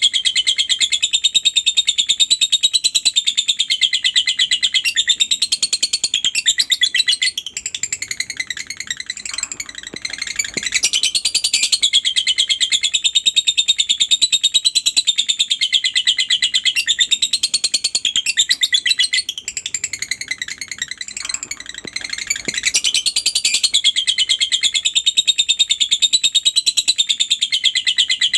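A lovebird doing its 'ngekek' song: a long, fast, high-pitched chattering trill held almost without pause, easing off briefly twice before running on again.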